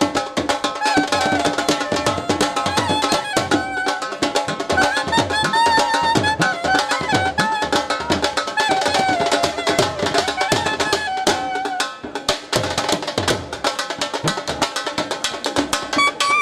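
Traditional music with fast, dense drumming and a melody playing over it; the drumming thins briefly about twelve seconds in.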